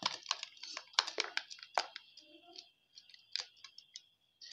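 A metal spoon stirring a thick mayonnaise-and-cream sauce in a white bowl, clicking and scraping against the bowl several times a second. After about two seconds the clicks slow to a few scattered taps.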